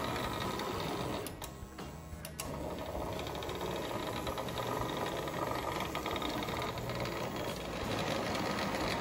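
Lionel 783 Scale Hudson O gauge model steam locomotive running along three-rail track. Its electric motor, gearing and wheels on the rails make a steady mechanical whir. It has just been cleaned and lubricated, and it is running better.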